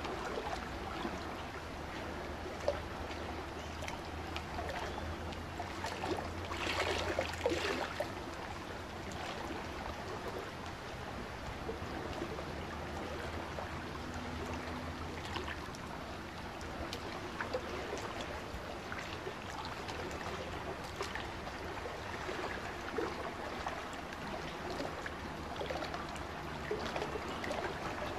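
Sea water rushing and splashing along a sailing yacht's hull under way, with a swell about six to eight seconds in.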